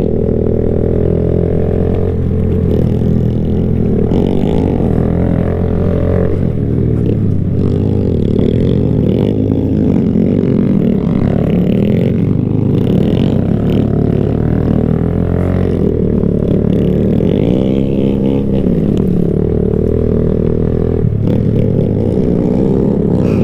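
125cc single-cylinder minibike engine running hard on a dirt trail, its pitch rising and falling again and again as the rider works the throttle through the gears.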